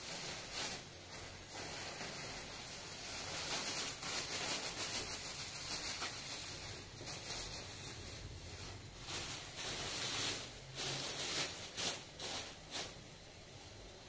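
Thin plastic bag crinkling and rustling as it is handled and pulled away from a pile of fresh greens, with a run of sharper crackles in the last few seconds.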